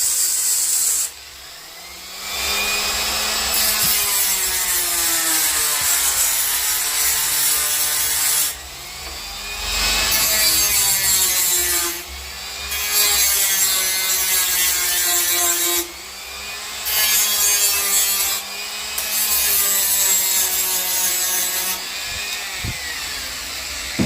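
Milwaukee M12 cordless die grinder with a carving burr cutting into black walnut, a rasping grind over a motor whine that sags and recovers in pitch as the bit bites. The grinding breaks off briefly several times, as the burr is lifted from the wood.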